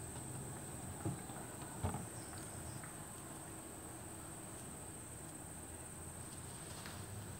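Quiet background ambience: a steady high-pitched whine over a low hum, with faint clicks about one and two seconds in.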